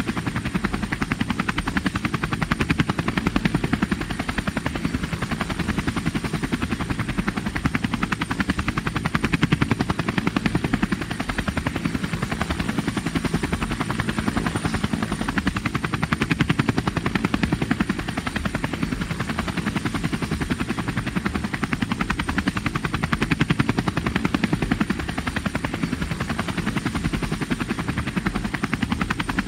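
Military helicopter running steadily, its rotor blades giving a rapid, even chop over engine noise, with a faint high whine and a level that swells and ebbs gently.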